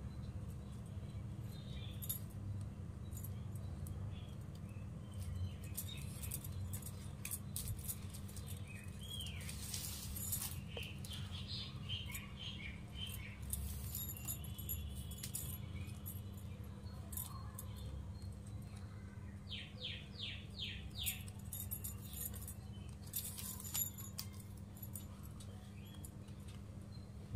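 Stiff plastic wire strands clicking and rubbing against each other as they are threaded and pulled tight by hand into a woven knot, with a few quick high chirps about two-thirds of the way through. A steady low hum runs underneath.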